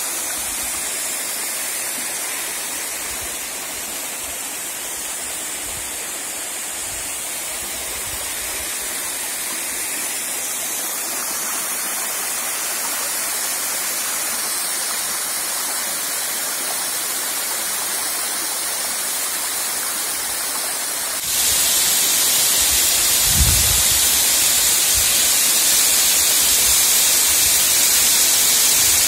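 Waterfall pouring down a rock face and splashing onto stones, a steady rush of water. About 21 seconds in it turns suddenly louder and hissier, and a brief low thump follows a couple of seconds later.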